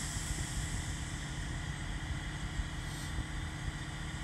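Diesel engine of a boom crane running steadily while it lifts and turns a large cedar log, with a brief hiss right at the start and another about three seconds in.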